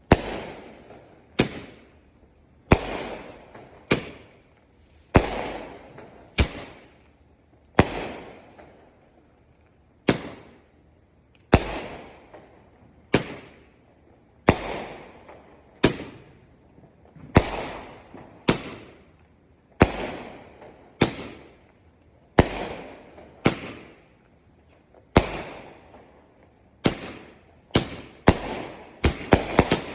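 Fireworks going off in a steady series, a sharp bang about every second and a half, each trailing off over about a second. Near the end the bangs come quicker and closer together.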